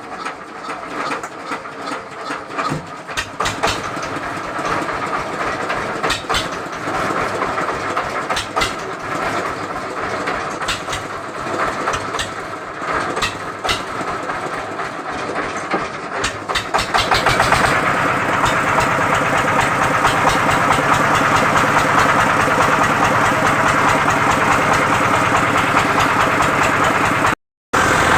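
An engine running, with irregular knocks and clatter over it. About two-thirds of the way through it becomes louder and steadier. It drops out briefly near the end.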